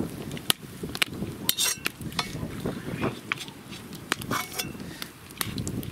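A metal spatula scraping and clinking against the inside of a cast-iron kazan as fried onion is scooped out of hot oil, with a run of sharp, irregular clicks.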